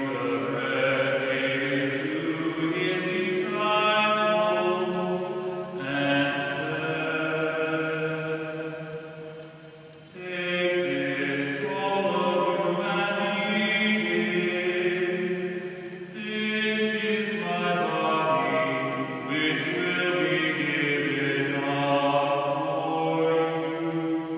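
A group of voices singing a slow, chant-like hymn in long held notes, breaking between phrases about ten seconds in and again near sixteen seconds.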